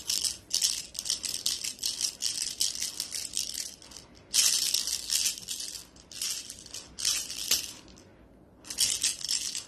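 Cat wand toy with a red pompom and shiny strands shaken and jiggled while a cat bats at it, making short bursts of high, hissy rustling several times a second, with a brief lull near eight seconds.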